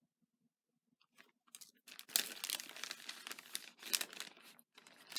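Crinkling and rustling of craft packaging as paper die-cut pieces are handled, starting about a second in after near silence, with many quick rustles that are heaviest in the middle.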